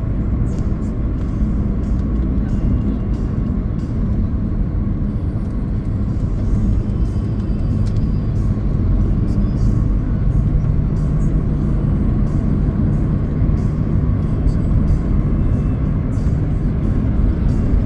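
Steady road and engine rumble inside a moving car's cabin, with music playing.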